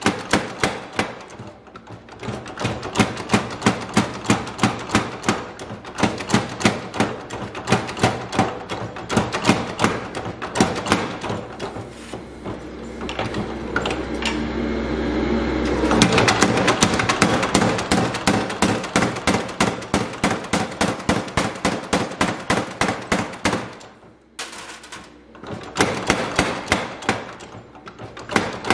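Massey 1cwt overhanging spring power hammer striking hot steel in a steady run of blows, about three a second, as a billhook blank is forged. About halfway a steady hum swells for a couple of seconds and cuts off sharply. The blows stop briefly near the end, then start again.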